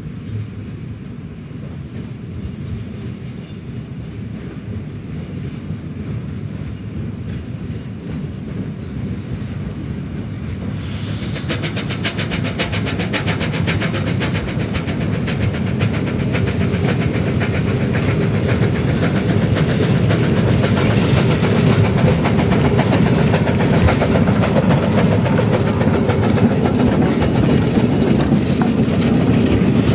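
Narrow-gauge steam train approaching and running past close by. A low rumble grows steadily louder, and from about a third of the way in it turns into a fast rhythmic clatter of the train on the track with some steam hiss, at its loudest in the second half.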